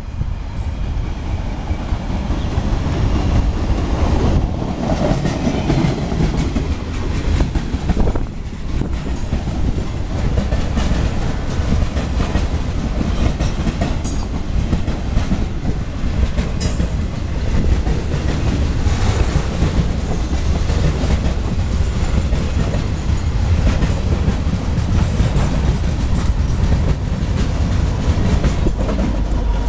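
CSX freight train's boxcars rolling past close by: a steady rumble thick with rapid wheel clicks over the rail joints.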